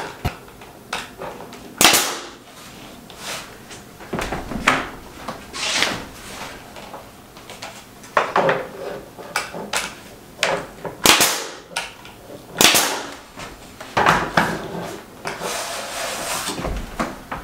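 Nail gun firing nails one at a time into quarter-round trim at the ceiling: about a dozen sharp shots at uneven intervals, some followed by a short hiss.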